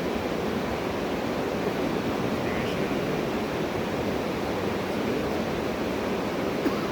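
Steady rushing of moving water, an even noise that holds without change.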